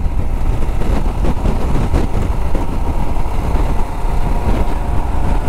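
Royal Enfield Himalayan's single-cylinder engine running steadily while riding at a constant road speed, heard from the saddle with heavy wind rush on the microphone.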